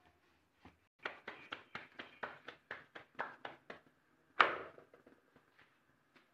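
Kitchen handling sounds as a rolled aloo paratha is moved onto an iron tawa: a quick run of light taps, about five a second, then one louder knock about four seconds in.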